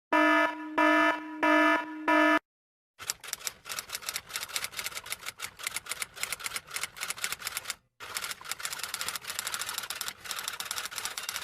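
An electronic alarm beeps four times. After a short pause, typewriter keys clatter in fast, uneven strikes, stopping briefly near the end.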